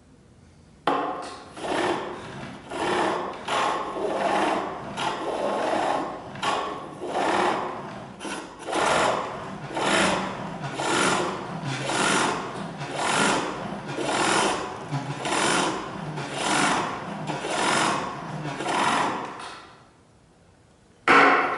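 Pole lathe turning a wooden handle: a chisel cutting the wood in rhythmic strokes, about one a second, as the cord drive spins the workpiece back and forth. The cutting begins about a second in, stops briefly near the end, and starts again.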